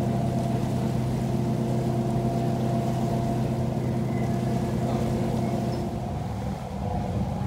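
A ferry's engine running with a steady low hum. The hum shifts about six seconds in.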